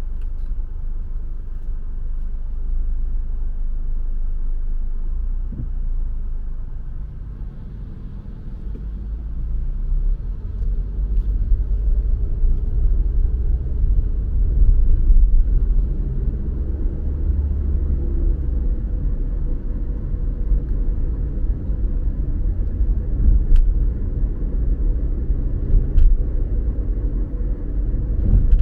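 A car driving, its low engine and road rumble easing off briefly and then building again about a third of the way in.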